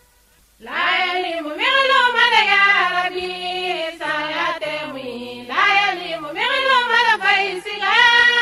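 A single high voice chanting a Muslim devotional song in long, melismatic phrases, its pitch sliding and wavering, starting about half a second in after a brief silence.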